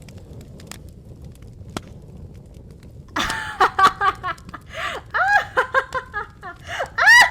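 Low crackling fire ambience with an occasional pop. About three seconds in, a woman breaks into a run of laughter, quick rising-and-falling giggles that carry on to the end.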